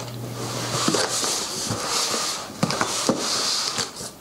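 Packing tape being cut open along a long cardboard box, in two long scraping strokes with a brief break between them and a few light clicks.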